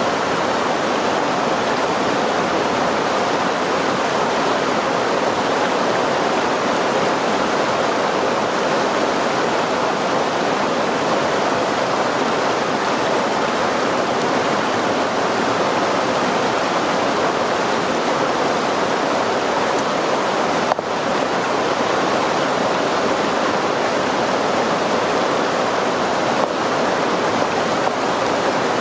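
River stream rushing, a steady, even flow of water noise that does not change.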